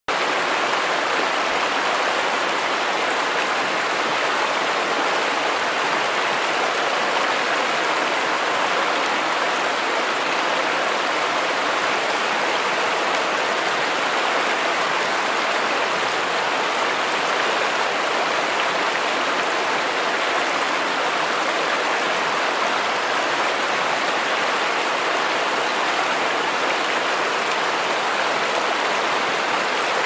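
Shallow mountain river running over rocks in small rapids: a steady, even rush of water.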